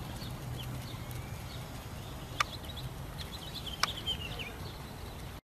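Outdoor ambience with a steady low rumble and small birds chirping, broken by two sharp clicks about a second and a half apart; the sound cuts off abruptly near the end.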